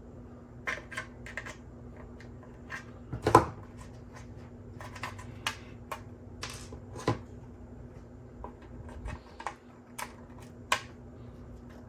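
PLA support material being snapped off a 3D-printed helmet: irregular small plastic clicks and cracks, the loudest about three and a half seconds in, over a faint steady hum.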